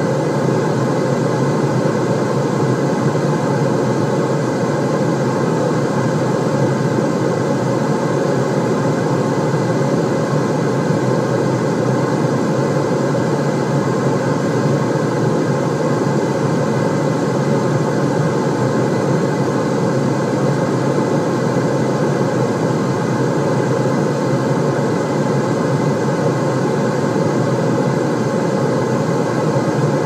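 Continuous white-noise sound track: a steady, even rushing noise weighted toward the low end, with a few faint steady tones above it.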